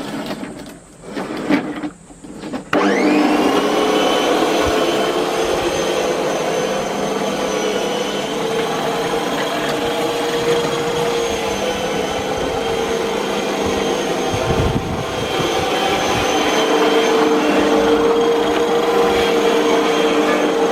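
A few irregular knocks, then about three seconds in a Makita MLM-2851 electric reel lawn mower switches on, its motor spinning up with a rising whine and running steadily with the reel turning. It carries an abnormal noise that the owner takes for the reel-blade shaft bearing.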